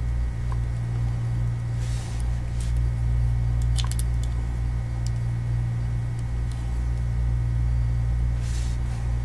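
Steady low electrical hum with faint higher tones above it, and a few faint light ticks from the multimeter probes being handled against the battery terminals.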